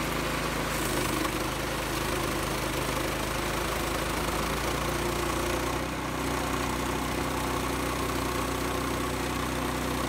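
Frontier OS18 band sawmill running steadily under load, its gas engine driving the blade through a locust log. The engine note shifts slightly partway through.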